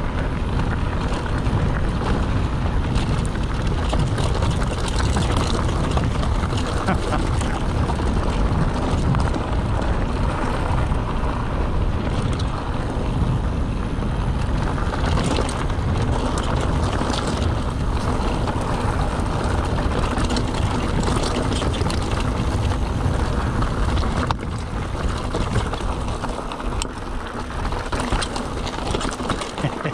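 Mountain bike riding a loose trail: wind rushing over the action-camera microphone and tyres rumbling over the ground, with occasional sharp clicks and rattles from the bike. It eases somewhat in the last few seconds.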